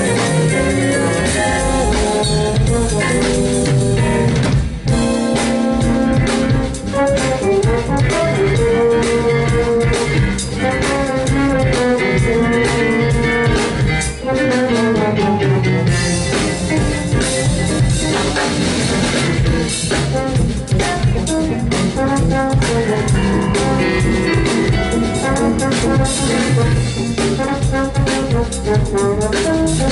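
A live jazz band playing: trombone, keyboard, electric guitar, electric bass and drum kit.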